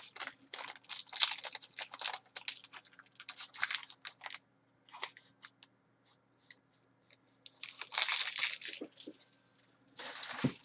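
Trading-card pack wrapper crinkling as it is torn open and handled, with the cards sliding out. It comes in bursts of crackling: dense for the first few seconds, sparse after, then again about eight and ten seconds in.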